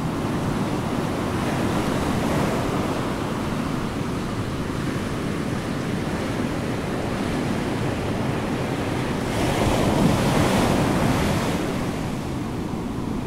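Steady rushing noise that swells to its loudest about ten seconds in, then eases back.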